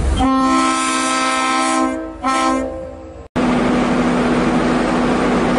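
Locomotive air horn sounding a chord of several notes: a long blast of about two seconds, then a short blast. After an abrupt cut, a steady horn note continues over the rushing noise of a train.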